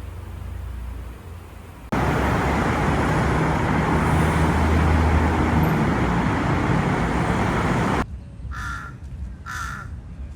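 A loud, steady rushing noise starts suddenly about two seconds in and cuts off abruptly some six seconds later. Two short, harsh bird calls follow about a second apart.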